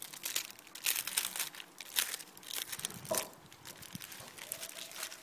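Aluminium foil crinkling and rustling in irregular bursts as hands unfold a foil packet.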